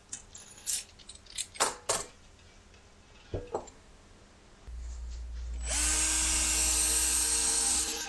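Light metallic clinks and knocks as the bare aluminium barrel and lip of a three-piece wheel are handled, then a cordless ratchet spins up and runs steadily for about two seconds near the end, running in the wheel's assembly bolts.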